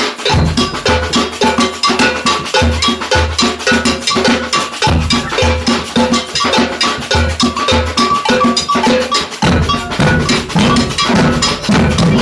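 Brazilian samba percussion band playing: an agogo bell pattern rings out over rhythmic bass drum strokes and snare-type drums. About three-quarters of the way in, the drum pattern changes and the low drums play much more densely.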